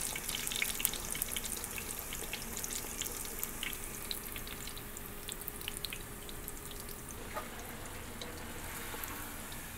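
Fry bread dough sizzling and crackling in shallow hot oil in a cast-iron skillet, with many small pops that thin out after about six seconds.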